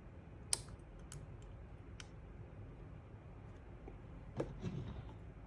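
Small metal picks clicking and tapping against a Browning X-Bolt rifle trigger assembly while a spring is being worked into it: a sharp click about half a second in, two lighter clicks after it, and a short cluster of knocks and scraping a little before the end.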